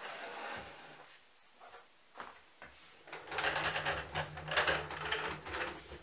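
Small wooden table on caster wheels being rolled across a laminate floor: a rattling rumble for nearly three seconds, starting about three seconds in. A softer scuffing comes first, near the start.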